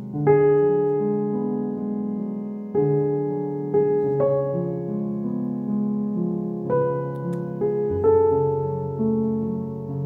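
Background piano music: a calm piece of chords and single notes, each struck and left to ring and fade.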